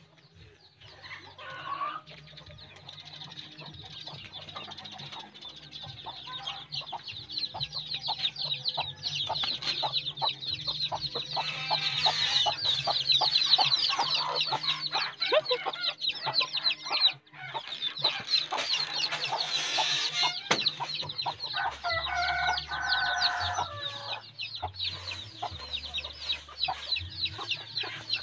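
Chickens clucking, with dense, rapid high chirping that builds through the middle and a lower call a little past twenty seconds in.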